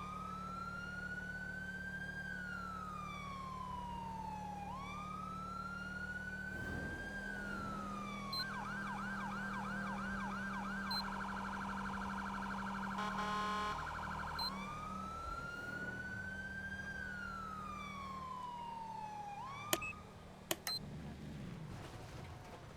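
Whelen electronic siren cycling through its tones: a slow wail rising and falling every few seconds, switching about 8 seconds in to a fast yelp and then to a brief choppy tone, before returning to the wail. The siren cuts off about 20 seconds in, with two sharp clicks. A low steady hum runs underneath.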